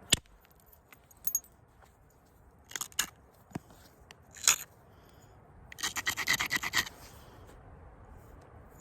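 Flintknapping on a stone blank with an elk bone billet: a few sharp clicks and taps of bone on stone, then about six seconds in a quick run of about a dozen scraping strokes, the edge being rubbed to ready the striking platform.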